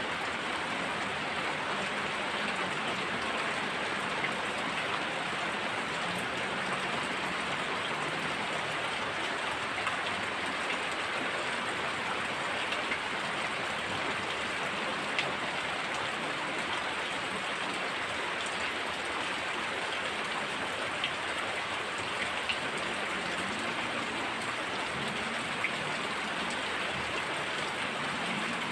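Heavy rain falling steadily, with scattered sharper drops ticking now and then.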